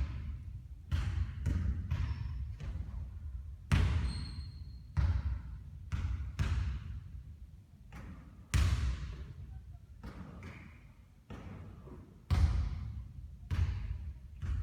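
A basketball bouncing on the court during three-point shooting practice: a run of irregularly spaced thuds, some close together, some a second or more apart.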